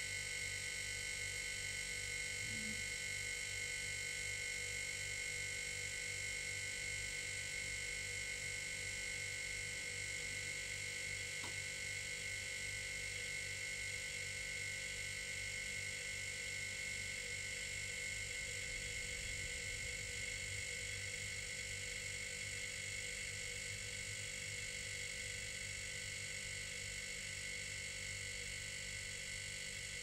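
Old refrigerator running: a steady low hum with a high, even buzzing tone over it.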